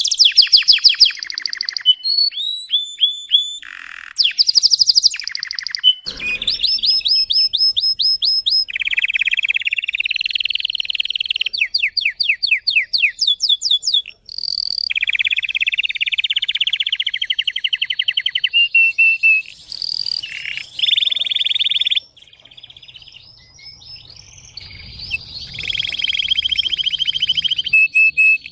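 Domestic canary singing a long, varied song of fast trills and rolling phrases, broken by a couple of short pauses.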